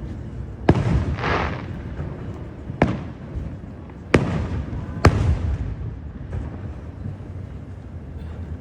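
Aerial fireworks shells bursting: four sharp booms within about five seconds, the first followed by a brief crackling hiss, over a steady low rumble.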